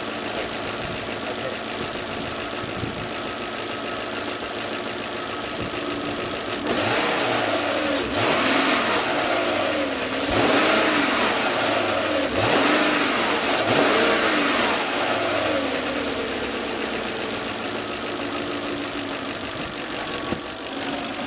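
Audi A8 3.7 V8 engine running on LPG: idling steadily, then revved several times in a row about seven seconds in, each rev rising and falling, before settling back to idle. Idle and revs sound even, the engine going fine on gas.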